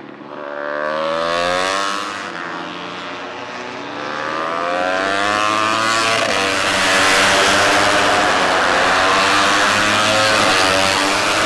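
Moto3 racing motorcycles' 250 cc single-cylinder four-stroke engines running at high revs, their pitch rising and falling through gear changes as the bikes go past. From about four seconds in, several bikes sound together and grow louder, loudest in the second half.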